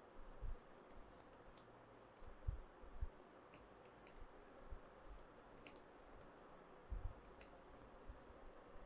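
Computer keyboard keys clicking faintly, in short irregular runs of typing.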